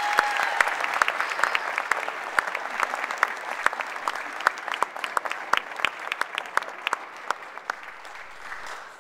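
Audience applauding, loud at first and thinning out gradually until it dies away near the end.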